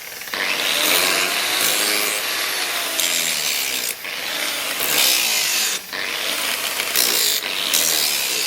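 Power grinder grinding the leaf-spring steel of a knife blade, a loud rasping hiss whose pitch wavers under load, in passes broken by short pauses. It cuts off suddenly near the end.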